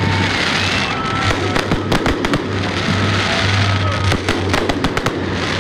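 Aerial fireworks display: a dense run of sharp bangs and crackles from bursting shells, with music playing underneath.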